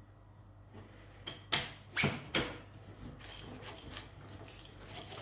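Aluminium extension tube of a long-reach electric hedge trimmer being pushed and worked into its pole coupling: three sharp clicks and knocks close together about a second and a half in, then fainter handling rattles.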